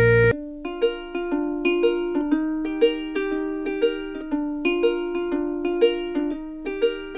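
Background music: a light plucked-string tune with notes picked at an even pace, each one struck sharply and fading. A louder, fuller passage cuts off just after the start.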